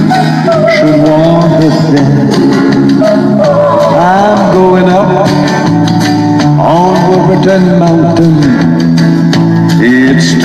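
Loud amplified live music through a PA speaker: a man singing into a hand microphone over a steady instrumental accompaniment.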